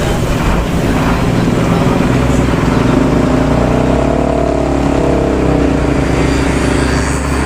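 Intercity bus's diesel engine running under way, its drone rising and then easing back down from about two and a half seconds in, over a steady low rumble.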